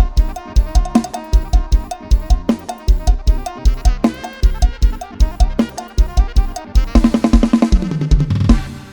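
Thai lam sing dance music: a drum kit drives a fast, steady beat of bass drum and snare under a melody line. About seven seconds in, a drum fill runs down the toms, falling in pitch, and the music fades just before the end.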